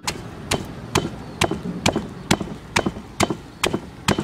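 Stone pestle pounding garlic, red chilies and salt in a stone mortar: steady sharp knocks, a little over two a second.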